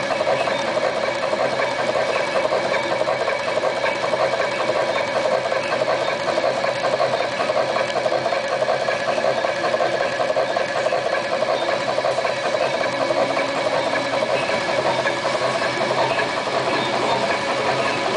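HX 508 automatic computer wire stripping machine running, feeding, cutting and stripping insulated wire with a steady mechanical whir.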